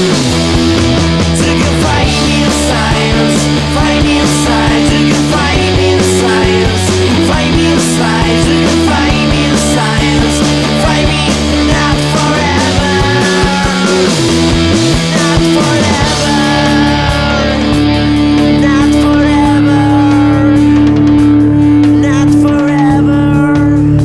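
Instrumental passage of a rock song played by a band of guitar, bass, keyboards and drums. About two-thirds of the way in, the drum hits fall away and a held chord rings on.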